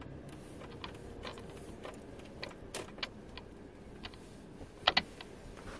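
Irregular clicks and knocks from a passenger-side upper strut mount, picked up by a clamp-on transmitter and played through a Steelman wireless ChassisEar receiver's speaker, with two loud knocks close together near the end. The knocking is the sign of a faulty upper strut mount.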